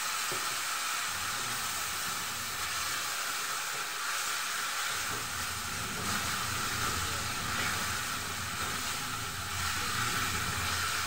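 Steady sizzling hiss of taro pieces frying in a pan, with a little water just added sending up steam. A low rumble joins about five seconds in.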